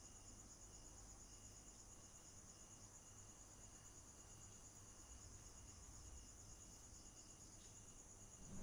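Faint night ambience of crickets chirping steadily, a continuous high trill with softer repeated chirps beneath it.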